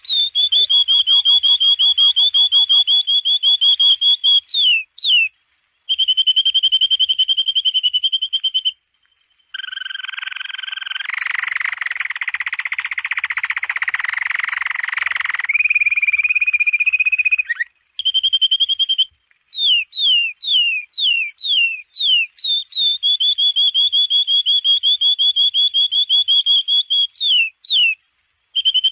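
Domestic canary singing: long, rapid rolled trills on a high note, broken by short pauses. There is a denser, rougher rolling passage in the middle and a run of about half a dozen quick falling swoops about two-thirds of the way through.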